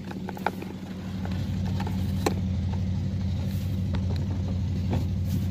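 A steady low hum from an idling engine, getting a little louder about a second in, with a few light clicks and taps of metal parts being handled.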